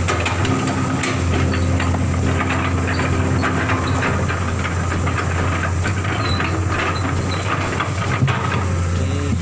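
Engine of a Komatsu PS200 road machine running steadily with a low hum, over scattered clicks and crackles.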